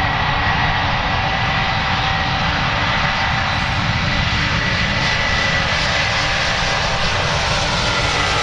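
Antonov An-124-100's four turbofan engines at high thrust on the takeoff roll: a steady loud roar with a high whine held on one pitch.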